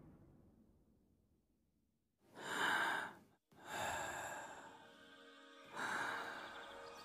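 A low rumble dies away into silence, then come three breathy sighs, with soft held music tones coming in under the last two.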